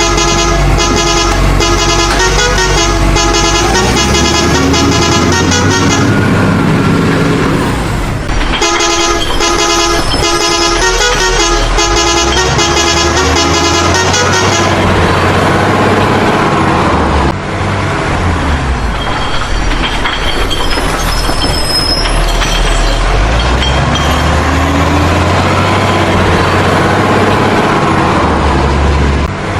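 Vehicle horns honking in rapid repeated toots for about six seconds, a short break, then another six seconds of honking; after that comes vehicle engine and traffic noise with slow rising and falling tones.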